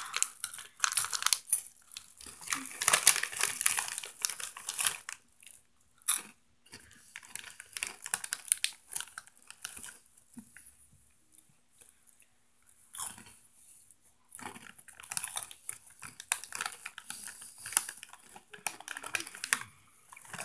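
Crunchy Flamin' Hot Limón Cheetos being bitten and chewed close to the microphone, in irregular bouts of crunching with a quieter pause around the middle.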